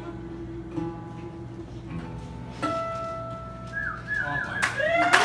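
Acoustic guitar music ending on sustained, ringing notes. Near the end the audience starts clapping and whistling.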